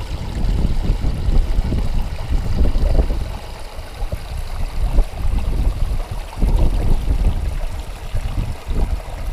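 Small mountain stream splashing and tumbling over granite boulders into a pool, heard close up, under a heavy, uneven low rumble of wind buffeting the microphone.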